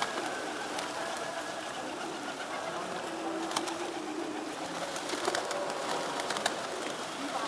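A large flock of feral rock pigeons cooing and fluttering their wings as they feed and take off. A few sharp clicks come through the middle and latter part.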